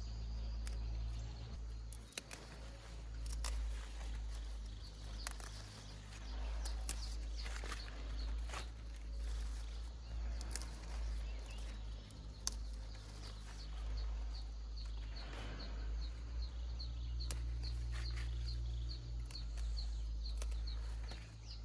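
Leafy greens being picked by hand: stems snapping and leaves rustling in scattered sharp clicks, over a steady low rumble. A fast run of high chirps, about three a second, sets in for the last several seconds.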